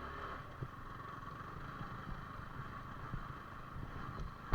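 Yamaha R15 V4's single-cylinder engine running steadily as the bike is ridden over a muddy track, with small knocks and one sharp, loud knock near the end.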